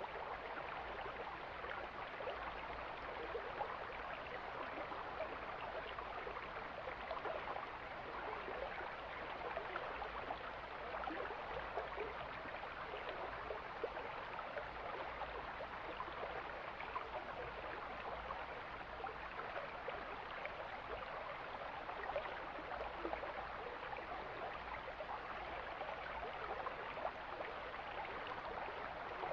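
Mountain stream flowing: a steady, unbroken rush of water.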